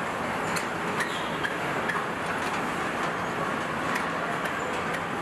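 Car assembly plant floor noise: a steady machinery hiss with scattered light clicks and clanks from work on the line.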